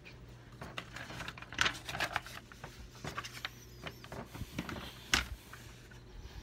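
Scattered light taps, clicks and rustles of a phone being handled close to the microphone, over a faint steady hum.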